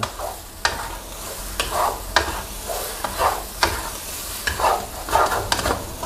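Wooden spatula stirring and scraping seafood and curry paste around a nonstick wok, in irregular strokes about once a second, over the sizzle of the frying coconut-milk sauce.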